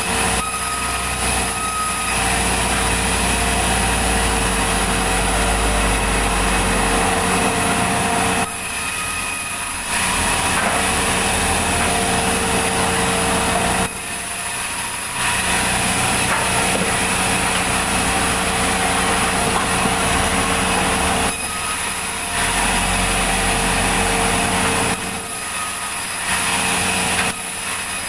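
Sawmill running and sawing through a log: a steady machine drone with cutting noise, dipping in level briefly four times.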